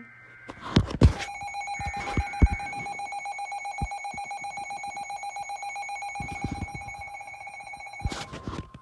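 Weather radio receiver sounding its alert alarm: a loud, rapidly pulsing electronic beep, with a few knocks in the first couple of seconds. Near the end the alarm stops and a steady single warning tone from the weather radio broadcast begins.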